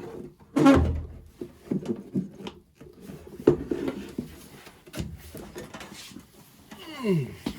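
Clunks, knocks and scraping as furnace draft-inducer parts are handled and pulled apart, with two sharp knocks, about a second in and about halfway through, and a short falling tone near the end.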